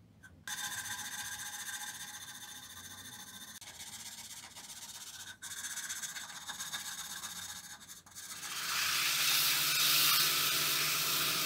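Sandpaper rubbed by hand along the natural edge of a wooden bowl, a steady scratchy hiss. About eight seconds in the lathe is running and sandpaper pressed inside the spinning bowl gives a louder, even hiss over the motor's low hum.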